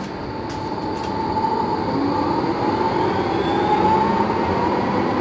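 Trams running on street rails: a steady rumble with a whine that slowly rises in pitch and grows louder as a tram comes closer.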